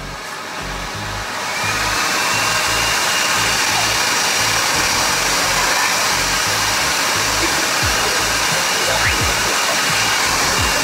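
Leaf blower running at full blast: a loud, steady rush of air with a faint high whine, building up over the first two seconds and then holding steady.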